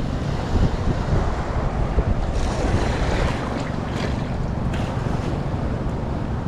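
Sea waves washing and breaking, with wind buffeting the microphone in a steady low rumble; a louder wash of surf swells about two seconds in.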